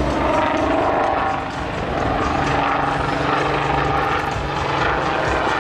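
Two helicopters flying overhead in a display pair, giving a steady drone of rotors and engines.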